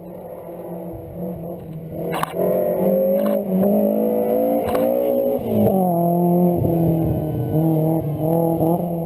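Rally car engine under hard acceleration, heard onboard: quieter for the first two seconds, then loud, its pitch climbing for about three seconds, dropping sharply about five and a half seconds in, then held high with small rises and falls. A few sharp knocks sound during the climb.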